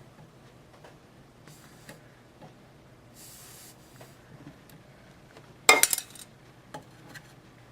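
Small tools clicking on a soldering workbench, a short hiss a little past three seconds in, then a sharp metallic clatter, the loudest sound, about three-quarters of the way through.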